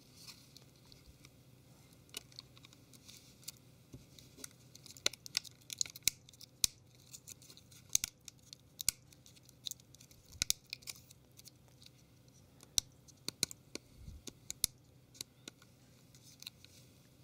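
Plastic battery cover of a Samsung Galaxy Ace S5830 being pressed on around its edges, its clips snapping into place in many small, irregular clicks.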